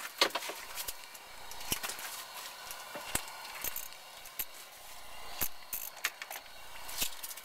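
Small spinning reel being cranked and the ice rod handled while a hooked fish is brought up through the hole: irregular sharp clicks and light rattles over a faint steady hiss.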